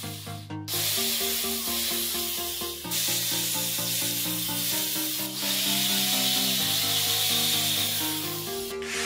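Background music with sustained notes that change every half second or so, over a bright, even hiss. It breaks off briefly a moment after the start and again near the end.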